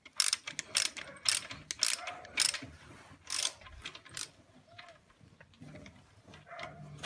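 Ratchet wrench clicking in short strokes about every half second for around four seconds, tightening the hydraulic timing-chain tensioner into a BMW N45 engine.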